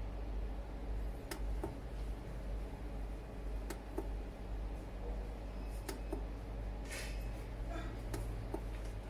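Clicks of the DOWN push-button on a Techfine 60A MPPT solar charge controller, pressed again and again a second or two apart to page through its display screens, some clicks coming in close pairs, over a low steady hum.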